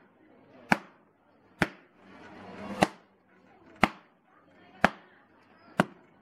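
A knife chopping hard peanut brittle: about seven sharp chops, roughly one a second, each with a short ring.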